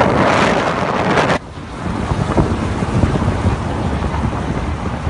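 Wind buffeting the microphone of a moving phone. It drops sharply about a second and a half in, leaving a low rumble.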